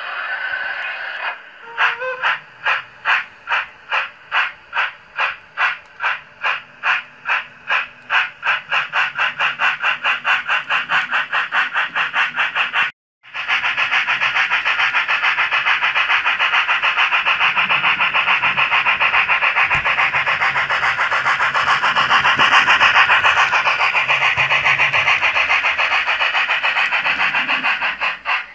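Digital sound decoder in a Liliput H0 model of the BR 05 streamlined steam locomotive playing steam exhaust chuffs through the model's small speaker. The chuffs start slowly, about two a second, and speed up steadily as the loco gets under way. After a brief break near the middle they run on as fast, continuous chuffing.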